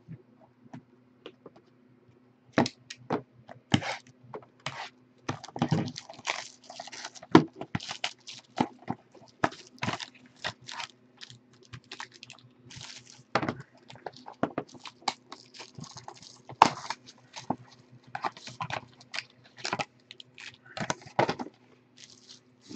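Hands handling foil-wrapped trading-card packs and cardboard card boxes: irregular crinkling, rustling and clicks that start a couple of seconds in, over a faint steady low hum.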